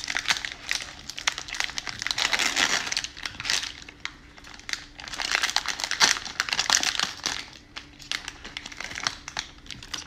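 Plastic cello-pack wrapper of a Donruss baseball card pack being torn open and crinkled by hand, in irregular bursts, loudest about two and six seconds in.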